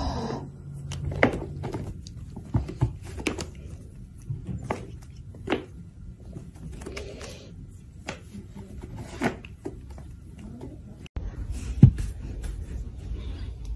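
Irregular taps and knocks as a cat bats at a feather wand toy while sitting on a cardboard scratcher. After a break, a single louder thump over a low hum.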